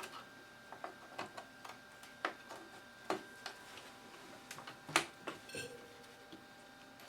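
Irregular plastic clicks and knocks of RAM modules being pushed into a Power Mac G4's memory slots and the slot latches being worked. The loudest click comes about five seconds in.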